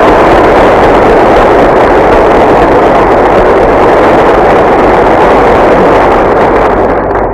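Audience applauding in a large crowd, a dense, even clatter of many hands on an old, band-limited recording, fading out near the end.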